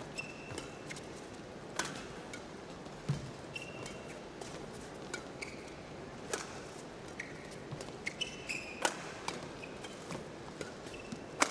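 Badminton rally: sharp racket hits on the shuttlecock every second or two, with short shoe squeaks on the court between them, over a low steady hall background.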